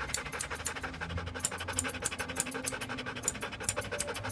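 Grooming scissors snipping through a standard poodle's curly coat: a run of quick, sharp cuts, several a second.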